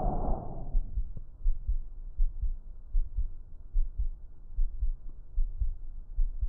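Auscultated breath sound over the chest. One breath fades out within the first second, followed by a pause in which low heartbeat thumps come through, paired lub-dub beats about once a second.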